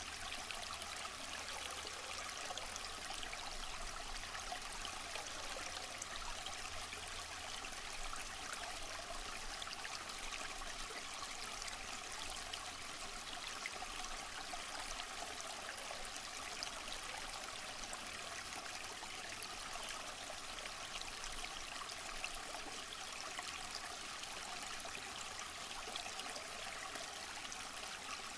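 Waterfall: a steady rush of falling water, an even hiss with little low end.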